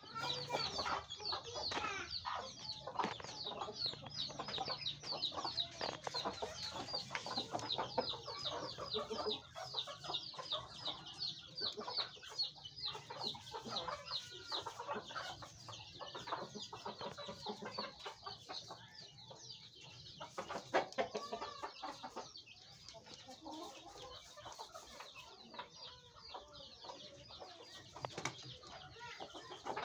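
Chickens clucking, with a fast run of high chirps over roughly the first ten seconds, then scattered calls.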